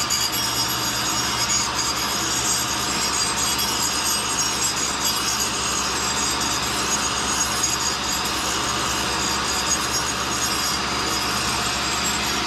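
A No. 2 cutter grinder's wheel grinding a small steel line boring bar as it turns in the work head, taking a light cut of about half a thousandth to true the end bearing surface. A steady grinding hiss sits over the even hum of the wheel and work-head motors.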